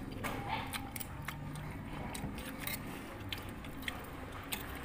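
A person chewing a mouthful of fresh fruit salad (pear, pineapple, papaya), with many short crisp clicks of biting and of metal spoons on a clay plate.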